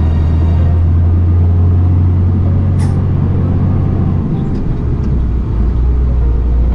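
Heavy truck's diesel engine running while driving, heard from inside the cab as a steady low hum; its note drops lower about four seconds in.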